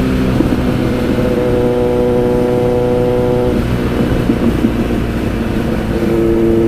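Kawasaki Z900's inline-four engine, fitted with a Racefit aftermarket exhaust, running at steady cruising revs, with wind rushing over the helmet microphone.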